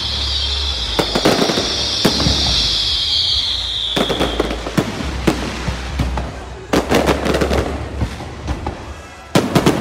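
Aerial fireworks display: a high hissing crackle fills the first few seconds and fades out. Sharp bangs from bursting shells follow in clusters around the middle, about three quarters in, and again just before the end.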